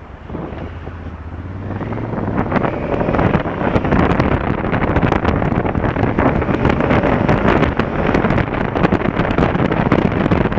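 Wind rushing over an action camera's microphone on a Honda Africa Twin CRF1000L motorcycle as it pulls away from a stop and rides through traffic. The noise builds over the first three seconds and then stays loud and steady, mostly burying the engine.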